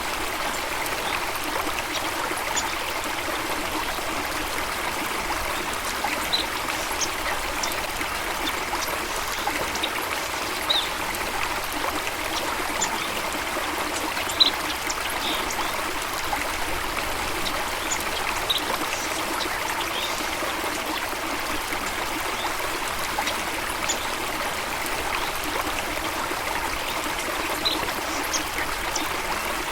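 Steady running water, an even rushing flow, with a dozen or so short high bird chirps scattered through it.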